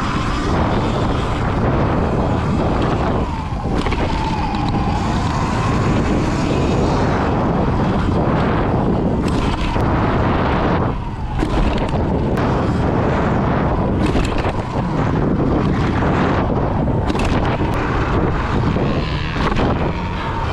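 Wind buffeting the microphone of a Sur-Ron X electric dirt bike at riding speed, with the electric motor's faint whine rising and falling as the throttle changes. Scattered knocks come from the bike jolting over the rough dirt track.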